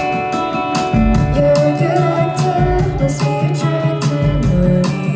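Indie rock band playing live: electric guitars, bass and a drum kit keeping a steady beat, with a woman's lead vocal coming in about a second in.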